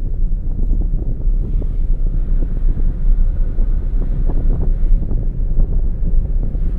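Low, steady road and wind rumble from a car on the move, picked up by a car-mounted camera.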